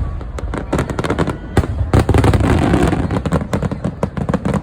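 Aerial fireworks going off in quick succession: a dense crackle of many small bursts over deep booms, loudest about two seconds in.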